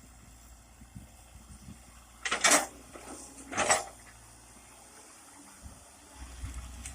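Komatsu PC100 excavator working: a low engine rumble, with two short, loud, hissing-scraping bursts about a second apart.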